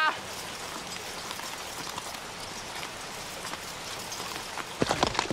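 Steady heavy rain falling. Near the end, a horse's hooves start clopping in quick repeated strikes.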